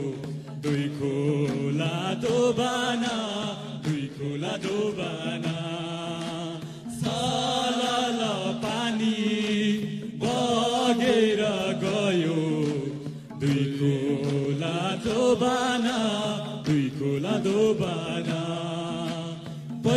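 A group of men singing a Deusi song, the chanted Nepali Tihar carol, to an acoustic guitar. The singing comes in phrases with short breaks every few seconds.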